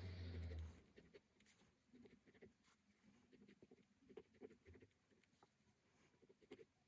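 Faint scratching of a ballpoint pen on sketchbook paper in many quick, short shading strokes, with a louder rub in the first second.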